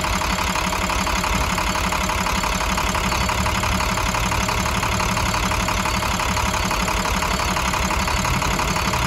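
2009 International MaxxForce DT inline-six turbo diesel idling steadily.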